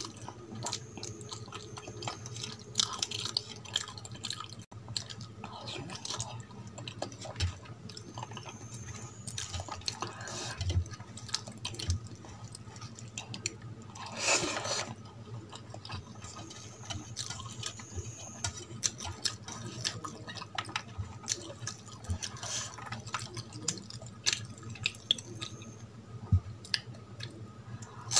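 Close-up eating sounds of rice and brinjal curry eaten by hand: many short wet mouth clicks and smacks while chewing, with a louder burst about halfway through as a handful of rice goes into the mouth. A faint steady low hum runs underneath.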